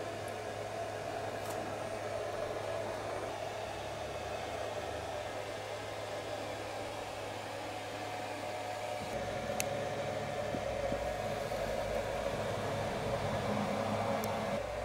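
3D-printed model locomotive wheelset, plastic wheels on a steel axle, rolling and circling on a tabletop: a steady whirring rumble, with a light click about ten seconds in and another near the end.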